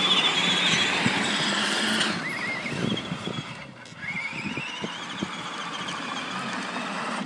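Electric drive motors and gearbox of a Power Wheels ride-on converted to a tracked snowmobile, whining as it drives through snow. The high whine wavers, and in the second half it rises in pitch as the machine speeds up.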